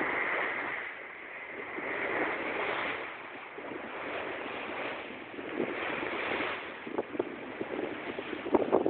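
Sea water rushing along the hull of a wooden sailing dhow under way, mixed with wind buffeting the microphone; the rush swells and fades every couple of seconds, with a few light knocks in the second half.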